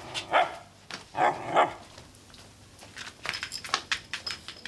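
A small terrier-type dog barking, three short barks in the first couple of seconds, followed by faint light clicking.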